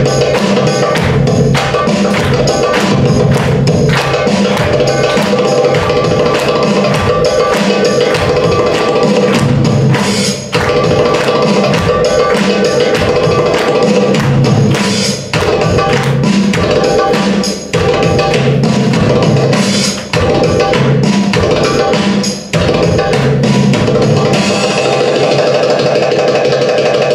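Belly-dance drum solo music: fast, dense strokes on an Egyptian tabla (goblet drum) over a sustained melodic drone. The drumming stops briefly several times in the second half.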